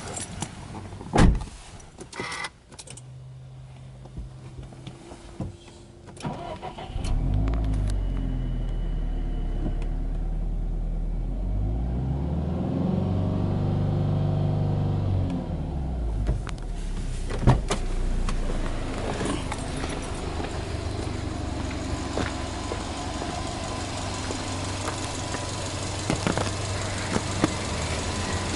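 Subaru Impreza WRX STI's turbocharged flat-four engine. After a few clicks from the cabin, it starts about seven seconds in and runs at a fast idle. It is revved up and back down a little past halfway, then settles into a steady idle.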